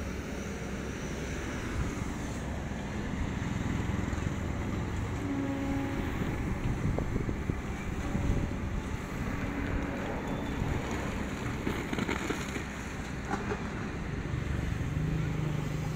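Long-reach excavator's diesel engine running steadily under load while the boom drags the bucket through the soil.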